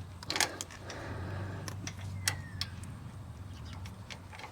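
Scattered small clicks and taps of hand work on a Harley stator wiring plug, over a low steady hum.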